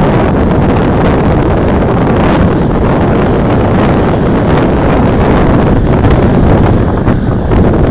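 Loud, steady wind rumble buffeting the microphone, drowning out other sound.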